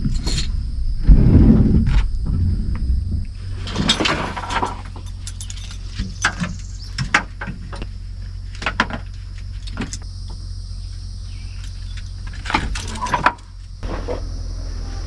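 A steady low rumble with scattered clicks and knocks, like a car with doors and keys being handled.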